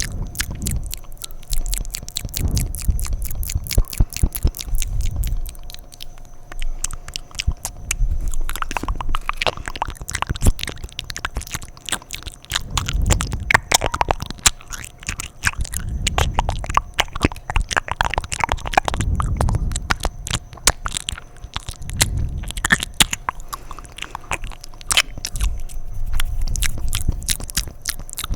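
Fast, wet mouth sounds very close to the microphone: rapid clicks and smacks of lips and tongue, coming in dense runs that swell and ease every couple of seconds.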